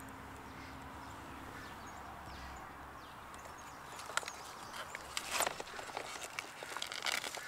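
Quiet outdoor background, then from about halfway a few short rustles and knocks as a hand grabs and moves onion stalks, the loudest about five and a half seconds in.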